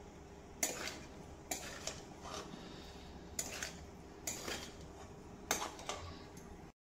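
Spatula scraping and knocking against a steel kadai while stirring and tossing penne pasta in its sauce, in separate strokes about once a second.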